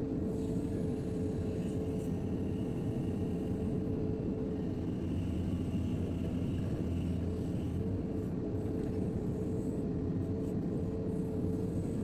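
JCB 3DX backhoe loader's diesel engine running steadily while working, with a faint higher whine for several seconds in the middle.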